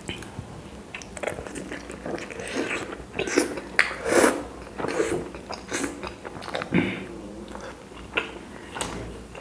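A person eating chapati, chewing and biting with irregular wet mouth clicks and smacks, busiest in the middle.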